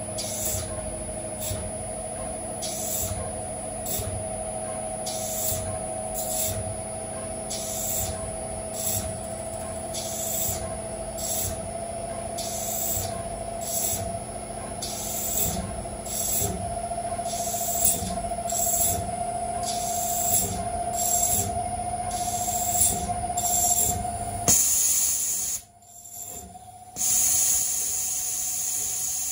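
CNC milling machine spindle spinning a nylon workpiece in a scroll chuck while a fixed turning tool cuts it, with a steady whine that slowly rises in pitch and a hiss that comes and goes about once a second. Near the end the whine steps down and a longer, louder hiss sounds.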